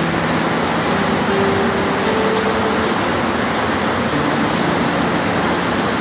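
Steady, even hiss of heavy rain, with faint low tones underneath that step to a new pitch every second or two.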